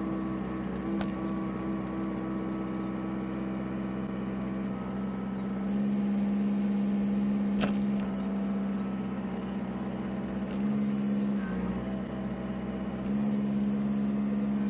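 Mini excavator's diesel engine running steadily while the hydraulic boom and arm are moved. The engine note grows louder in stretches, from about six seconds in, briefly near eleven seconds, and again near the end, as the hydraulics work. There are a couple of sharp clicks along the way.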